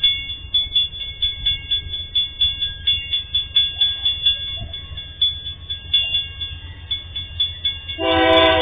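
Level-crossing warning bell ringing fast and steadily, about three strokes a second, over a low rumble. About eight seconds in, a train horn starts blowing, one long sustained blast that becomes the loudest sound.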